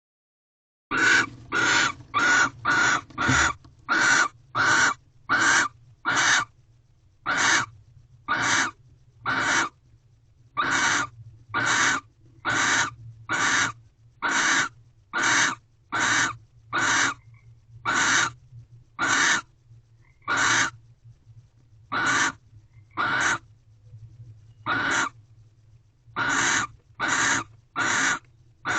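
Barn owl giving short, harsh, hiss-like calls over and over, about thirty of them. They start about a second in, quick at first, then about one a second, over a faint steady low hum.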